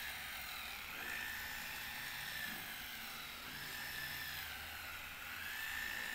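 Scholl Velvet Smooth electronic nail file's small motor running with its filing head spinning: a steady whine whose pitch sags briefly every second or two as the head is drawn across a fingernail.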